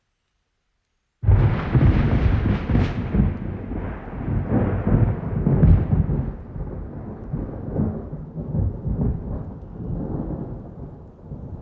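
Thunder breaks in suddenly about a second in, with a few sharp cracks over the first few seconds, then rolls on as a deep rumble that slowly fades, over the hiss of heavy rain.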